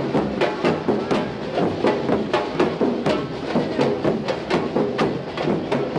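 A marching drum group playing a fast, steady rhythm of sharp drum strokes, about five a second.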